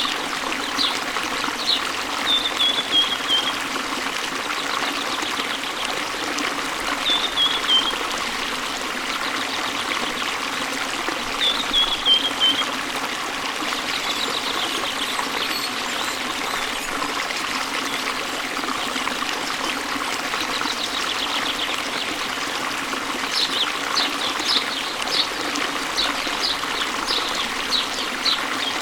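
Waterfall splashing into a stream: steady rushing water, with small birds chirping over it. Three short descending phrases come in the first half, and a run of quick high chirps comes near the end.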